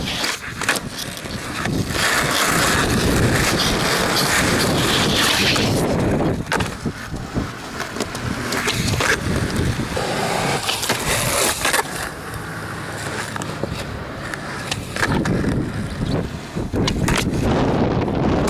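Skateboard wheels rolling on pavement, with several sharp clacks of the board popping and landing.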